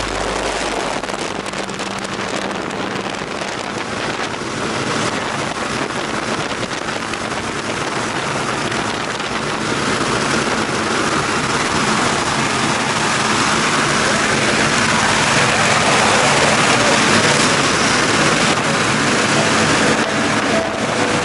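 Wind rushing through the open door of a small jump plane in flight, a steady hiss-like noise on the microphone that grows slightly louder through the second half.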